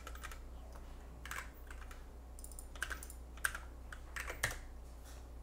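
Faint computer keyboard keystrokes: a few scattered, irregular taps as a line of Java code is typed.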